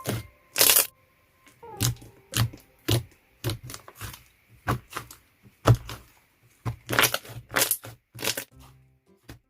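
Wood glue–based slime being pressed and poked by hand, giving a run of short, sharp crackling pops, about one or two a second.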